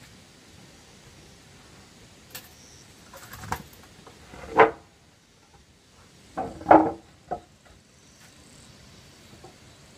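Loose wooden boards knocking and clattering as they are picked up and set down: a few light knocks, then two louder knocks about two seconds apart in the middle, with a last light knock after them.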